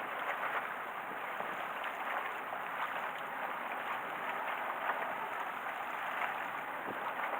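Small waves washing and splashing against concrete tetrapods on a seawall, a steady watery wash with many small splashes.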